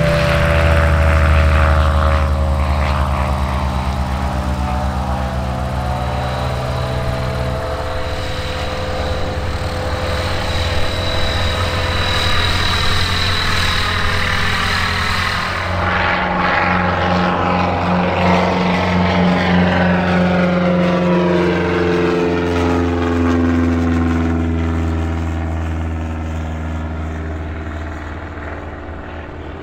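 Light propeller aircraft's piston engine running steadily. Its note changes about 8 seconds in and again about halfway through, then drops slowly, and the sound fades a little near the end.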